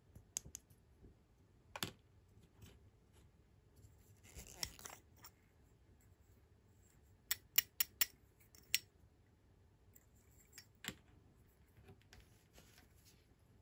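Small hard plastic toy parts clicking and tapping as they are handled: a miniature doll lipstick's cap and tube knocking together, with a brief scratchy rustle about four seconds in and a quick run of five sharp clicks just past the middle.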